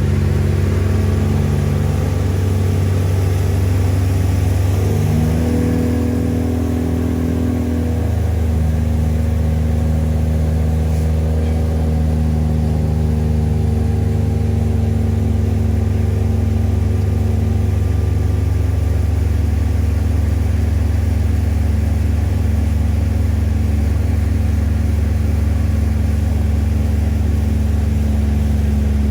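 Boat engine running steadily underway. Its note shifts between about five and eight seconds in, then holds steady.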